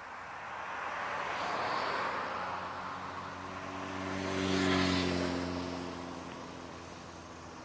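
Two vehicles pass close by one after the other. The first is mostly a rushing noise; the second is louder, with a steady engine hum, and rises and fades within a few seconds.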